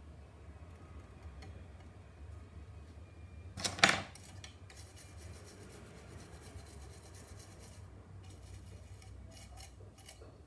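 Small hobby tools handled and worked on a plastic model car body: a sharp clack just before four seconds in, then a stretch of faint, fine scratching. A steady low hum runs underneath.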